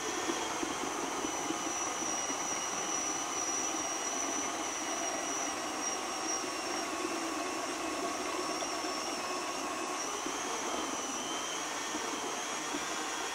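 KitchenAid stand mixer motor driving the Food Processor attachment, running steadily with a high whine as carrots are pushed through the fine grating disc. The whine wavers slightly in pitch as the feed changes.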